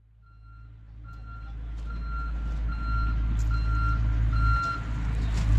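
Reversing alarm on a construction machine beeping about six times in an even rhythm, over the machine's steady engine rumble; the sound fades in at the start and the beeps stop near the end.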